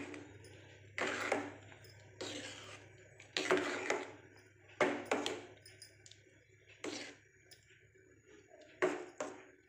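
A ladle stirring thick sweet pongal in a metal pot: irregular scraping strokes, roughly one a second, some with a faint ring from the pot, over a steady low hum.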